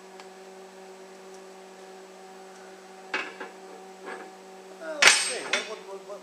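Pieces of half-inch (#4) rebar being handled and knocking against each other. There is a sharp click about three seconds in and a loud, ringing metallic clank about five seconds in, over a steady low hum.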